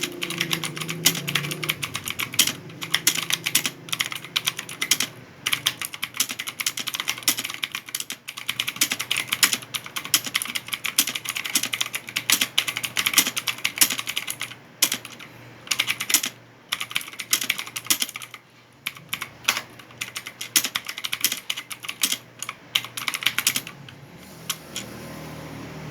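Fast typing on a Gigaware K30 computer keyboard: keys clicking in rapid runs with a few short pauses, stopping about two seconds before the end.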